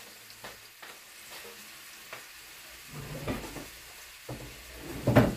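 Skin-on chicken legs searing in hot oil in a pan, a steady sizzle. A few knocks come about three seconds in, and a louder thump comes near the end.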